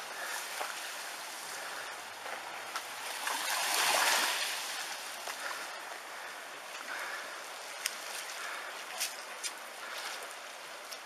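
Tsunami floodwater rushing through a street, a steady rushing noise that swells to its loudest about four seconds in. A few sharp knocks come near the end.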